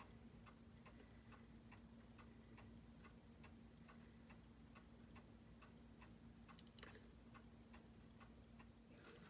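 Seiko 6309 automatic movement ticking fast and evenly at 21,600 beats per hour, six ticks a second, faint, over a faint steady hum. The even beat is that of a freshly serviced movement running in after a first rough regulation, keeping near-zero rate with good amplitude and little beat error.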